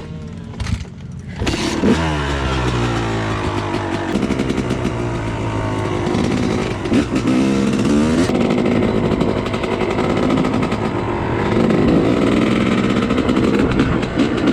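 Motocross dirt bike engine running loud and close, revving up and down again and again after coming in sharply about a second and a half in.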